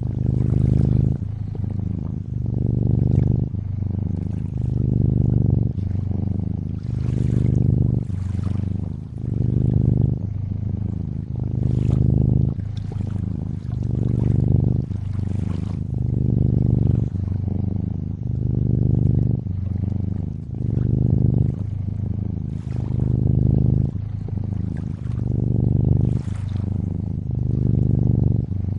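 A cat purring in a low, rhythmic drone that swells and eases about every second and a half to two seconds with its breathing, over a soft wash of gently trickling lake water.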